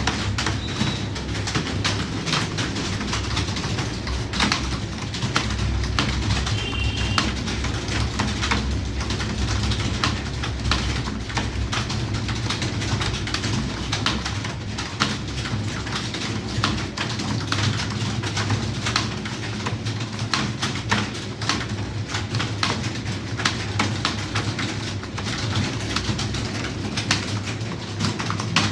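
Typing on a computer keyboard: many quick, irregular key clicks over a steady low hum.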